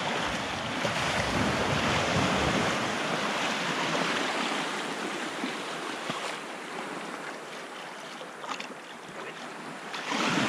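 Small surf waves washing in over a sandy beach, with wind buffeting the microphone. The wash is loudest in the first half, eases off, then swells again near the end.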